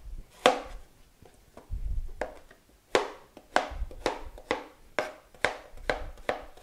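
Kitchen knife chopping calabacitas (Mexican squash) on a plastic cutting board, each cut ending in a sharp knock on the board. A few separate cuts come first, then from about three seconds in a steady run of chops, about two a second.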